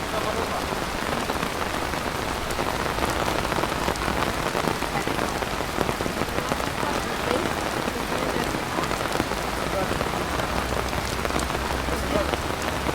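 Pouring rain falling steadily, a constant hiss with many individual drops ticking through it.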